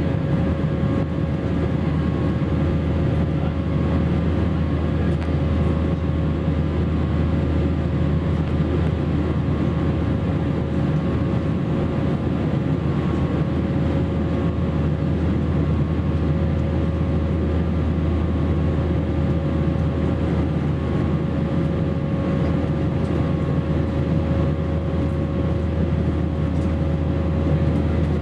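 Steady cabin noise of an Airbus A321-231 in flight, heard inside the cabin over the wing: the deep, even drone of its IAE V2500 turbofans and the airflow, with a steady hum throughout.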